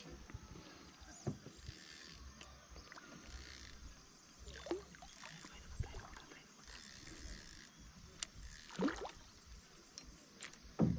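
Water sloshing and splashing around a kayak while a hooked fish fights near the surface on a bent spinning rod. A few short, louder splashes break through, the loudest near the end.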